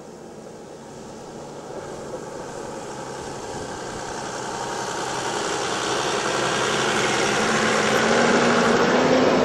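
Toyota Land Cruiser HDJ80's 4.2-litre straight-six turbodiesel engine running at low revs off-road, growing steadily louder as the truck approaches and passes close by, its note rising a little near the end.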